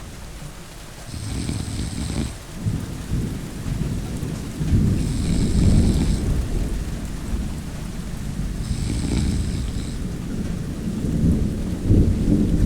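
A person snoring in a slow, even rhythm, one snore about every four seconds, each lasting about a second, over steady rain and continuous rumbling thunder.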